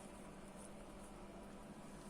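Near silence: faint room tone, a steady hiss with a low hum and no distinct sound.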